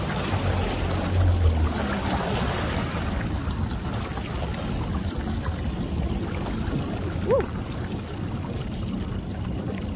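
Small waves and boat wakes lapping and washing at the water's edge, with the low drone of passing boat engines. A single short chirp about seven seconds in.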